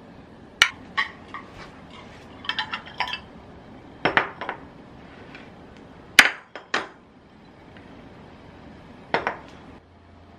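Sharp clinks and knocks of glass and metal kitchenware: a spoon tapping against a glass measuring cup and a plastic container, then a Glasslock glass microwave bowl set down and moved on the countertop, with the loudest knocks a little after the middle.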